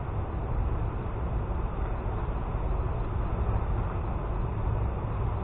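Steady rumbling wind noise buffeting the microphone, with an unbroken flutter at the lowest pitches.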